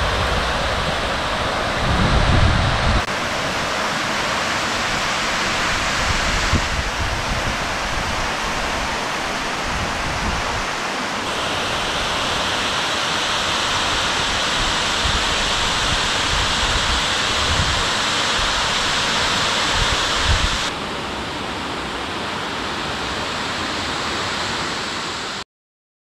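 Cascata del Salto waterfall: a steady rush of falling water. Its sound changes abruptly several times at cuts between shots, and it cuts off suddenly near the end.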